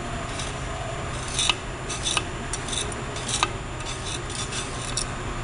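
A flat scraper blade scraping caked grime off the cast aluminium case of a Turbo Hydramatic 350 automatic transmission, in short irregular strokes with a few sharper scratches.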